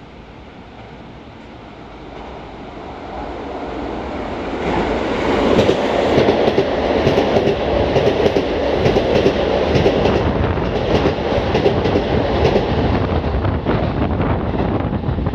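Keisei 3700-series electric commuter train passing through a station at speed without stopping. The rumble builds over the first few seconds as it approaches, then stays loud while the cars go by, with rapid clacking of the wheels over rail joints.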